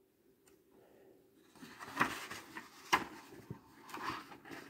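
A page of a hardcover picture book being turned by hand: paper rustling with two sharp flaps, starting about a second and a half in.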